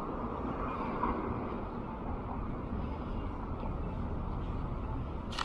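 Steady outdoor background noise, with one sharp click near the end.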